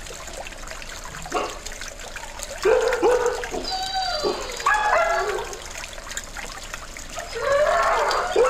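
Dogs at a breeder's kennels barking in bouts, several calls overlapping, louder again near the end, over the steady trickle of a small garden pond fountain.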